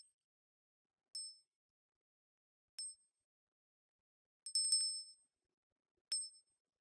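A small high-pitched bell dinging: single short rings about every one and a half seconds, with a quick run of several rings about two thirds of the way through.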